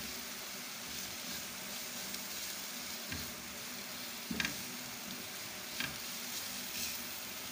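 Grated carrot, onion and spices sizzling in oil in a frying pan while being stirred with a spatula: a steady hiss with a few soft knocks of the spatula on the pan.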